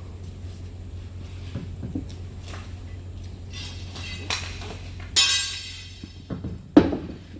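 Metal clanking: a few light clicks, then a loud ringing clang about five seconds in and a thud near the end, over a steady low hum.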